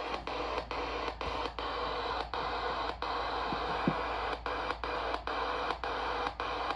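Radio static: a steady hiss broken by brief dropouts about twice a second, with a few faint clicks, and no voice on the channel.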